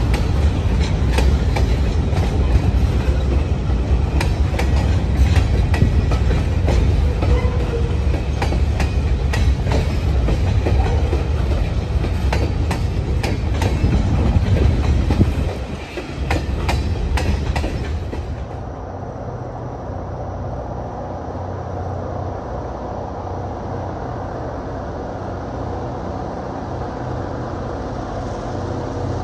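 Freight train of boxcars and covered hopper cars rolling past: a steady heavy rumble with wheels clicking over rail joints. About two-thirds of the way through it gives way to a quieter, steady low rumble.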